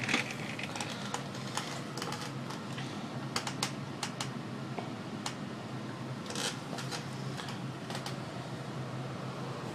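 Homebuilt 3CPX5000A7 high-power tube amplifier running, with a steady low hum and air noise from its power supply and cooling. Scattered light clicks come and go over it.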